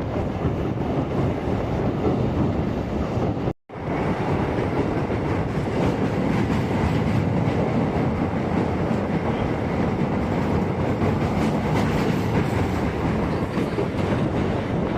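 Passenger train running steadily over a rail bridge, heard from on board: a continuous rumble of wheels on rails. It breaks off abruptly for a split second about three and a half seconds in, then carries on.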